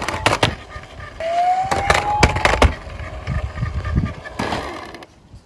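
Die-cast toy minicars rolling and clattering, with a string of sharp knocks. About a second in, a siren tone rises in pitch for over a second.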